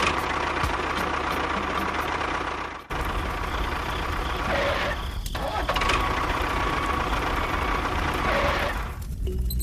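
Small motor of a miniature DIY tractor running steadily with a faint whine, cutting out briefly about three seconds in.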